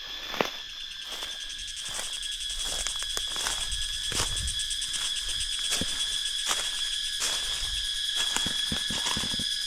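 Steady high-pitched chorus of insects, with a fast pulsing buzz above it, over a hiker's regular footsteps on a forest trail.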